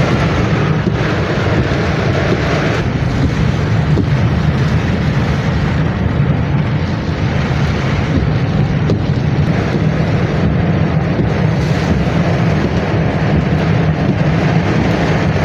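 Loud, steady rush of wind and heavy monsoon rain on a moving car, with wind buffeting the microphone.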